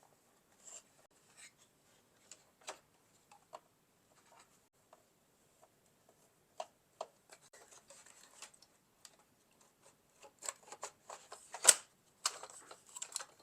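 Scattered small clicks and taps of a Roomba i7 robot vacuum's plastic parts and tools being handled during disassembly. A denser run of louder clacks and rustling comes near the end as a connected part is worked loose.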